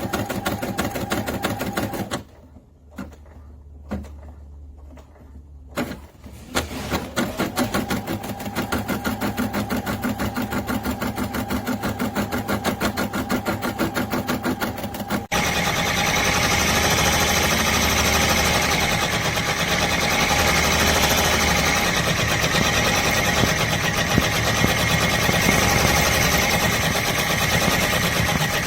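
Embroidery machine stitching with a fast, even rhythm. It stops about two seconds in, leaving a few clicks, and picks up again. After an abrupt cut about halfway through it runs on louder and steadier.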